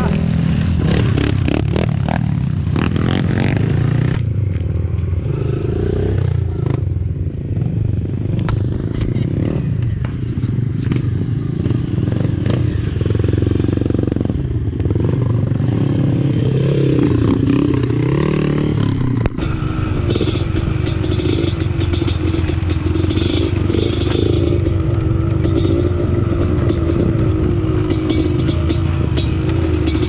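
Trail motorcycle engine running over rough ground, its revs rising and falling, with rattling and scraping from the bike. About two-thirds of the way through the engine settles to a steadier note while the rattling goes on.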